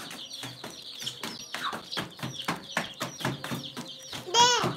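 Chickens clucking, with a dense run of quick high peeps and short clicks. A loud pitched call rises and falls a little after four seconds in.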